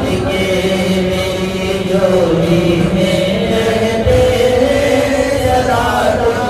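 A man singing a devotional naat unaccompanied into a microphone, drawing out long held notes that slide up and down in pitch.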